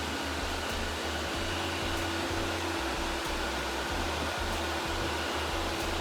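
Robot vacuum running: a steady whirring hum of its suction fan and brushes.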